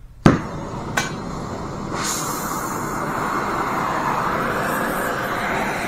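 Oxy-acetylene torch with a cutting tip being lit with a striker: a sharp pop as the gas catches about a quarter second in, a second click about a second later, then the steady hiss of the flame, which swells about two seconds in as the flame is turned up to a blue cutting flame.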